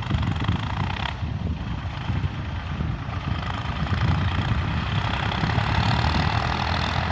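New Holland TT55 tractor's diesel engine running steadily under load while pulling a plough.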